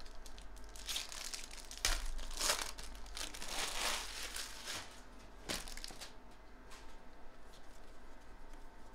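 Foil wrapper of a Bowman Draft Jumbo baseball card pack being torn open and crinkled, in rustling bursts over the first few seconds. A single sharp click comes about five and a half seconds in.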